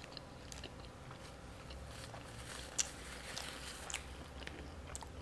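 A person chewing food close to the microphone, with scattered small sharp mouth clicks.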